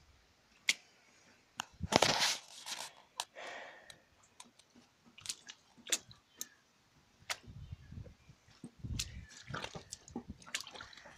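Handling noise from a phone carried while walking: scattered clicks and rubs, with a louder burst of noise about two seconds in and low rumbling near the end.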